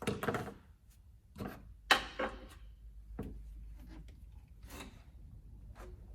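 Scattered knocks, clicks and rubbing of parts and tools being handled in a car's engine bay, the sharpest knock about two seconds in.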